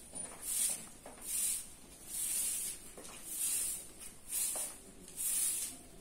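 Soft grass broom swept across a bare concrete floor: a swishing hiss with each stroke, about one stroke a second.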